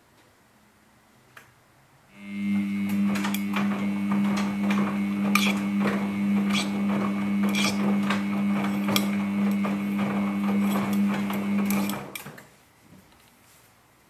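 Samsung Ecobubble 8 kg front-load washing machine turning its drum in the wash: a steady motor hum with many small knocks from the tumbling laundry. It starts suddenly about two seconds in and stops suddenly near the end.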